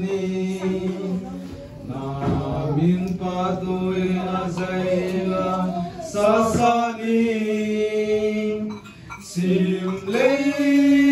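Vocal chanting: a voice sings long held notes in slow phrases, with short breaks between them.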